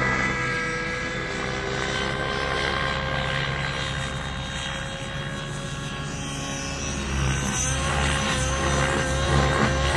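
Nitro RC helicopter (SAB Goblin Black Nitro) in flight, its glow engine and rotors making a steady held tone. It fades a little midway as the helicopter moves off and grows louder again about seven seconds in.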